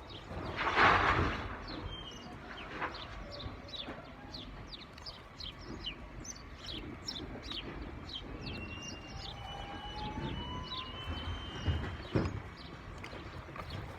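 Small birds chirping, many short calls throughout. A short loud burst of noise comes about a second in, and a brief thump near the end.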